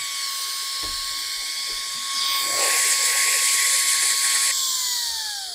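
Battery-powered USB-C brushless dust blower running at full speed: a steady high motor whine with a rush of air that grows louder about two seconds in. About four and a half seconds in it is switched off, and the whine falls in pitch and fades as the motor spins down.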